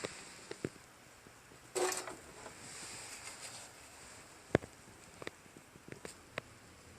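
Scattered clicks and light knocks of hand work on a Tecumseh snowblower engine's recoil starter, the sharpest about four and a half seconds in, with a short hiss about two seconds in.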